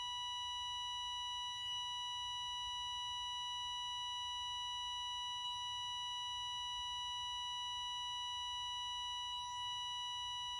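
A steady, unbroken electronic tone, a single high pitch with faint overtones, like a broadcast test tone or a flatline beep.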